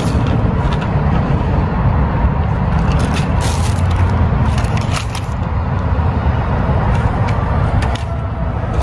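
Plastic shopping bags and blister-packed fishing lures crinkling and clicking as they are handled, in scattered bursts, over a steady low vehicle rumble.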